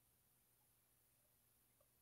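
Near silence: faint steady room tone, with one tiny tick near the end.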